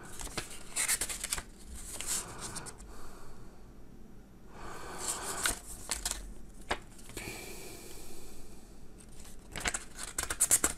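Paper rustling as the pages of a small instruction booklet are turned by hand, in several separate flips, with a couple of sharp clicks among them.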